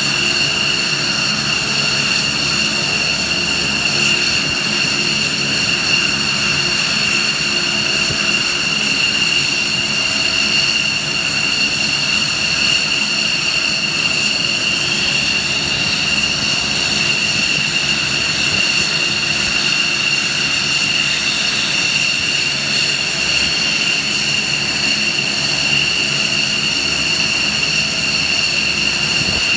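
Aircraft turbine engines running at idle: a steady, high-pitched whine made of several tones over a low rumble, unchanging throughout.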